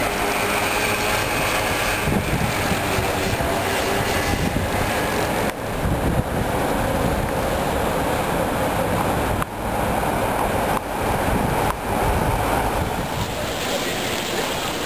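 Steady city street noise from traffic. It drops out abruptly for an instant several times.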